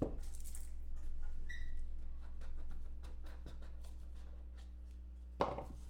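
Trading cards being handled, with faint scattered clicks and rustles over a steady low electrical hum. A brief faint beep comes about a second and a half in, and a short louder rustle near the end.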